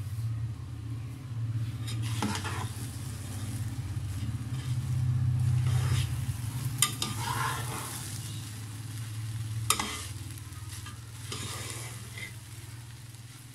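Spatula stirring and scraping sweet zarda rice in a nonstick wok, with two sharp taps against the pan, one about seven seconds in and one about ten seconds in. A low steady hum runs underneath.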